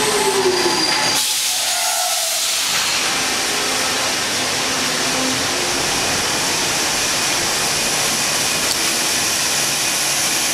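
Stockholm metro train at the platform: a falling whine as it slows, cut off about a second in, then a steady hiss.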